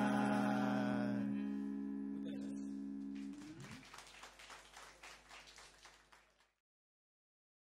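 A rock band's closing chord on electric guitars rings out and fades. It is cut off with a short downward slide about three seconds in. A few seconds of faint scattered clapping follow, then the sound drops out completely.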